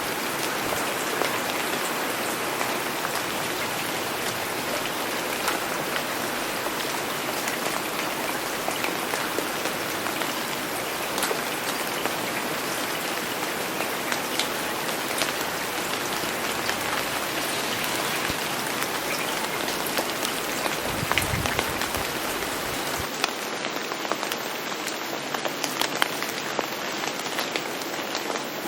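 Steady rain falling, with individual drops ticking through the even hiss. A brief low rumble comes about three-quarters through.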